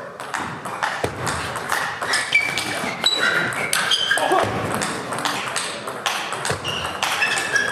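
Table tennis rally in a doubles match: the celluloid-plastic ball clicking off paddles and table in quick, irregular succession, with short high squeaks from players' shoes on the court floor.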